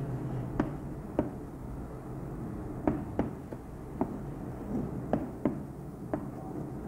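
Chalk tapping and scraping on a blackboard as words are written: a string of short, sharp, irregular taps, about one or two a second.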